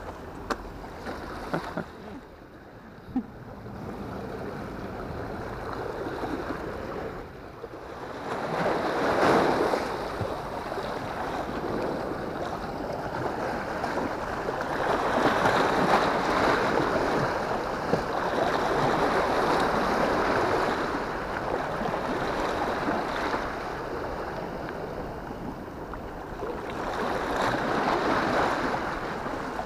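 Sea waves washing against a concrete seawall, a rushing hiss that swells and fades every several seconds, with some wind on the microphone. A few light clicks in the first few seconds.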